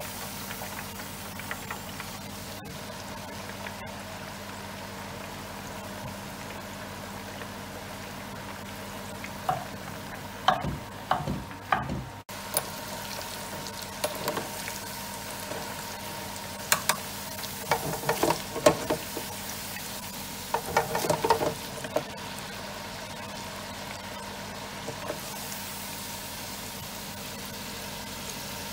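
Potato chips deep-frying in hot oil in a deep fryer: a steady sizzle. In the middle stretch it is broken by several clusters of sharp clicks and knocks.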